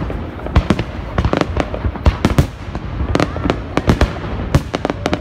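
Fireworks display: aerial shells bursting in rapid, irregular bangs, several a second, over a steady low rumble.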